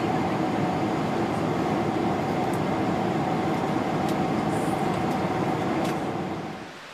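Airliner cabin noise in flight: a steady roar with an even hum running through it, fading out near the end.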